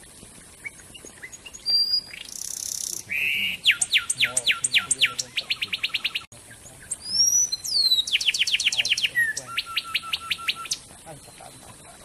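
A wren singing two loud song phrases. Each opens with a harsh note or a swooping whistle and runs into a rapid series of clear, falling notes that speeds up toward its end.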